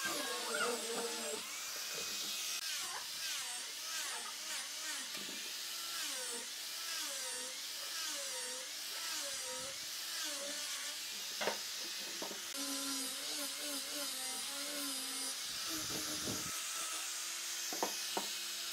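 Angle grinder with a sanding disc running against wood, its motor pitch wavering up and down as it is pressed onto the curved wooden workpiece and eased off. A few sharp knocks come through, about halfway and near the end.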